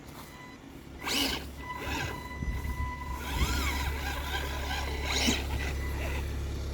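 Small electric motor of a radio-controlled toy car whirring in short bursts as it speeds up, with a steady low hum under it.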